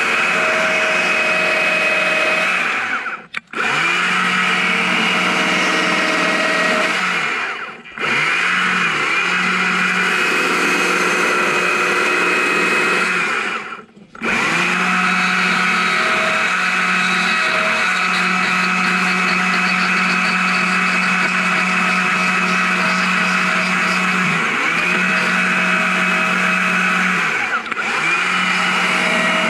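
Chainsaw running at high revs while carving into a log, its pitch sagging briefly several times. The sound drops away for a moment three times, about 3, 8 and 14 seconds in.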